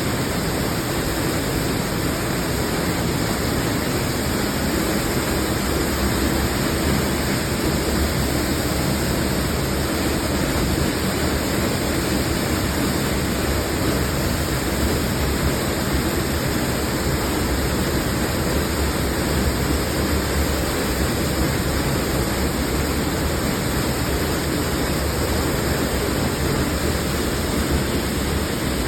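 Waterfall, a steady roar of falling water.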